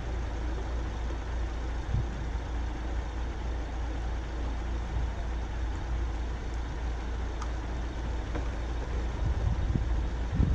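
Street traffic: a steady low rumble with an even hiss. There is a soft thump about two seconds in and another near the end.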